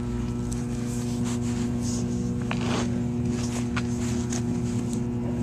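Handling noise from a handheld video camera being jostled and moved: rustling and scattered small knocks over a steady low mechanical hum.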